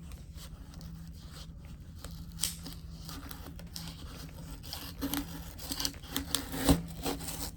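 A mailed package being opened by hand: tape and paper tearing and packing material crinkling in scattered bursts, busier in the second half, with one sharp knock about two-thirds of the way in.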